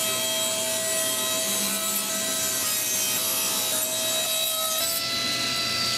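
Table saw running while ripping along the edge of a wooden plank: a steady saw whine with the noise of the blade cutting wood, its pitch rising slightly near the end.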